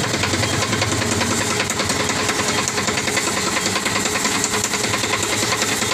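Kumar piston pump, belt-driven by an electric motor, running with a steady, rapid, even knocking. It is an abnormal pump noise that could come from an oil problem, a belt problem, loose bolts or a wrong pressure setting.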